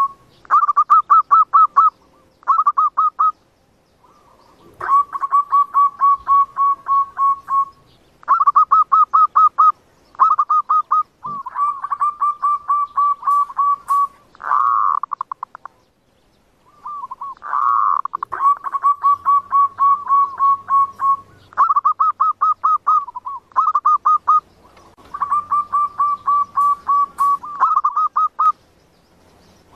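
Zebra dove (perkutut) singing: repeated phrases of rapid, evenly pulsed cooing notes, each phrase one to three seconds long, with short pauses between them and a longer pause about halfway through.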